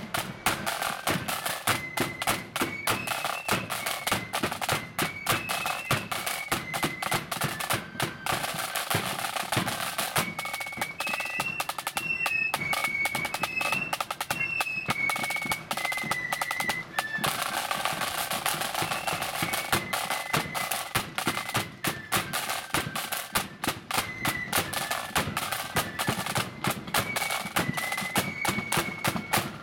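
Marching flute band playing a march: flutes carry the melody over rapid side-drum strokes and rolls, with a bass drum keeping the beat.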